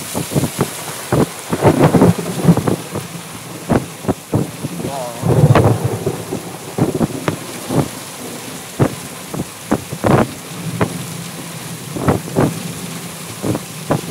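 Heavy rainstorm: large raindrops striking close by in loud, irregular smacks over a steady rain hiss, with a louder, deeper rumble about five seconds in.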